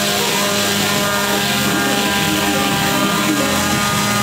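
Electric palm orbital sander running with a steady hum as it sands a wooden strip.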